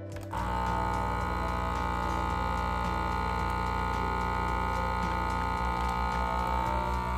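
Countertop vacuum sealer's pump switching on just after the start and running steadily with a hum and whine as it draws the air out of the bag. A low pulsing throb comes in about two-thirds of the way through.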